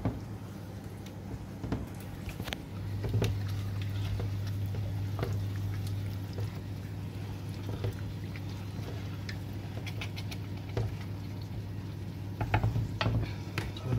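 A wooden spoon gently stirring thick curry in a stainless steel saucepan: scattered light taps, clicks and scrapes against the pan and through the sauce. Beneath them runs a steady low hum that grows louder about three seconds in.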